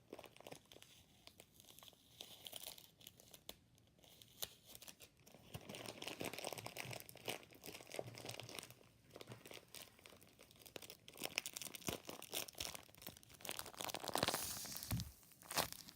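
Plastic bag and tape crinkling and crackling as they are handled and pressed, with irregular small crackles; loudest about fourteen seconds in.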